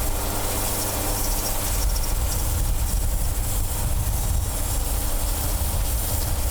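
Band sawmill's engine running steadily with a low rumble.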